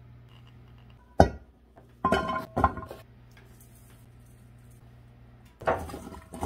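A stainless steel mixing bowl clinking and ringing as it is handled: a sharp knock about a second in, a cluster of ringing clatters around two to three seconds, and another near the end as a gloved hand tosses sweet potato pieces in it.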